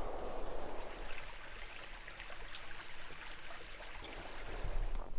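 A brook running steadily: an even rush of flowing water.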